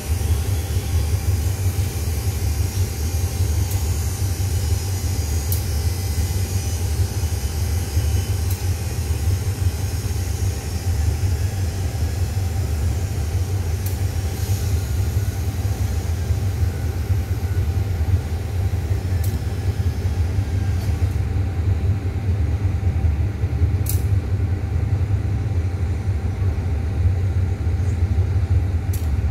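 Steady low rumble of a diesel train engine idling, with a few faint sharp clicks.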